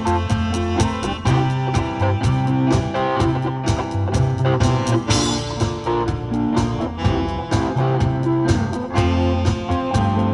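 Live instrumental combo band music: a drum kit keeps a steady beat under a bass line and guitar, with keyboard filling out the sound.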